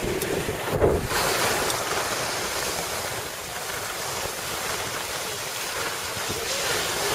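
Steady rushing noise of skiing downhill: wind buffeting the microphone over the hiss of skis sliding on packed snow.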